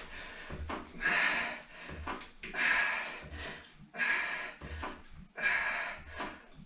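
A man breathing hard and rhythmically, a loud puff of breath about once a second, from the exertion of pulling swim-training resistance cords.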